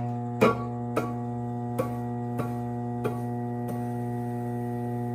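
Electric pottery wheel motor humming steadily as the upturned bowl is tapped to center it for trimming: about six sharp taps, roughly one every half second or so, each lighter than the last.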